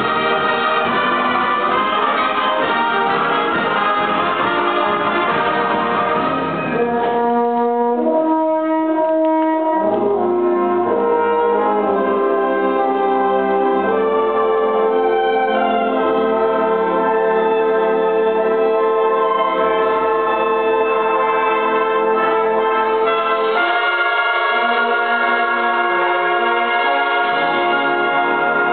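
High school concert band playing live, woodwinds and brass together with the brass to the fore. A dense, busy passage gives way about seven seconds in to held chords with moving melody lines, and the full band swells again near the end.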